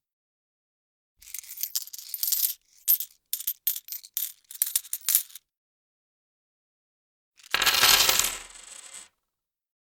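Metal coins clinking and dropping in a quick, uneven run of bright jingles for about four seconds. After a pause of about two seconds comes a single louder, denser rattling burst of coins, lasting about a second and a half.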